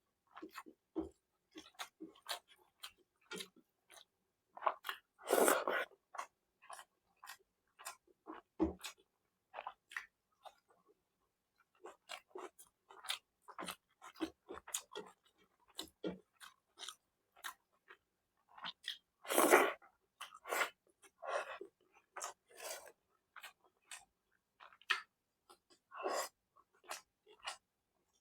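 A person chewing and eating food close to the microphone: a steady run of short wet mouth clicks and smacks, with two louder, longer sounds about five seconds and nineteen seconds in.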